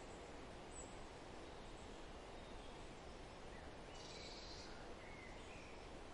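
Faint, steady outdoor background hiss with a few distant bird calls about four to five seconds in.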